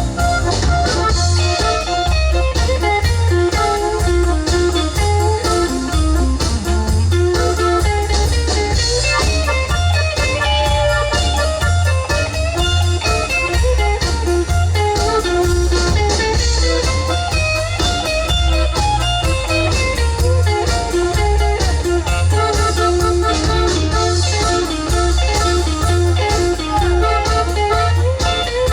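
Live country-blues band playing an instrumental break, with an electric guitar taking a solo over bass and drums.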